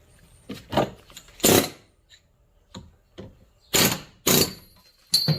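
Pneumatic air hammer fired in short bursts, about seven in all, each a fraction of a second of rapid hammering. It is driving a pinned part out of a tractor's range selector linkage, and the part comes free.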